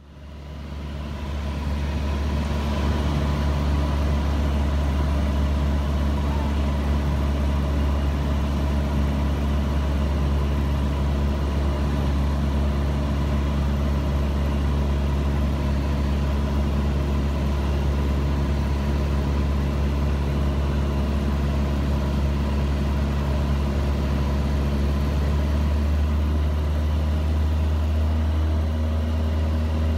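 Cabin drone of a Cessna 172 Skyhawk's piston engine and propeller in flight, fading in over the first couple of seconds and then holding steady.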